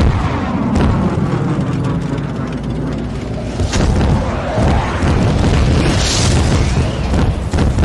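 Explosions in a war scene: a continuous heavy low rumble broken by sharp blasts about a second in, near the middle and near the end, as bombs or shells land around a convoy of military trucks.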